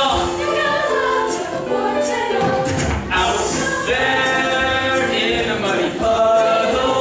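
A group of voices singing together in chorus, a musical-theatre ensemble number, with held notes that change pitch from phrase to phrase.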